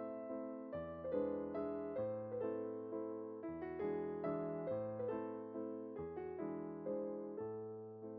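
Background music: gentle piano chords with a steady, even pulse.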